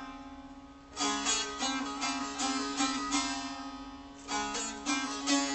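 A plucked string instrument plays a melody over a steady held drone note. A phrase dies away at the start, a new run of plucked notes begins about a second in, and another phrase starts just after four seconds.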